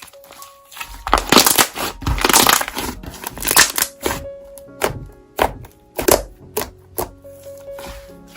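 Slime being squeezed and pressed by hand: repeated squishing, crackling strokes, about one or two a second, starting about a second in, over soft piano music.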